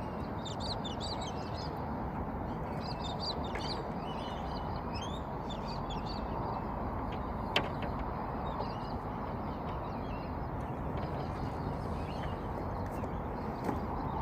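Birds calling in quick, high chirps, thick in the first half and again near the end, over a steady rushing background noise, with one sharp click about halfway through.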